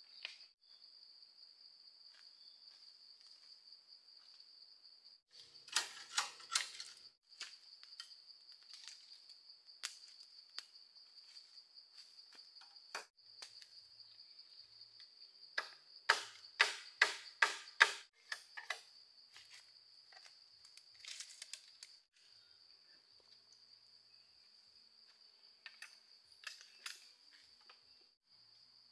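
Steady high-pitched drone of insects, broken by short runs of sharp knocks: about four around six seconds in, a louder run of about six near the middle, and smaller groups later on.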